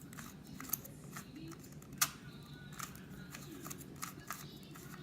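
Plastic 2x2 Rubik's cube being turned by hand: scattered, irregular faint clicks as its layers snap round, the loudest about two seconds in.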